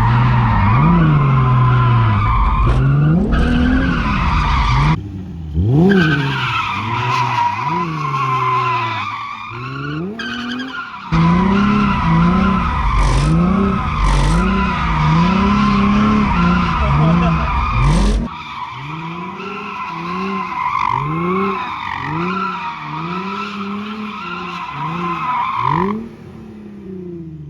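Drift car doing donuts: the engine revs up and down over and over while the tires squeal steadily. A heavy low rumble runs under it for the first two-thirds, and the squeal stops near the end.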